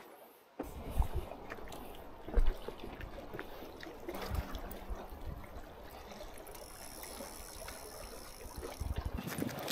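Seawater lapping and trickling among concrete tetrapods and rocks at the water's edge, with a couple of low thumps and a sharp click at the very end.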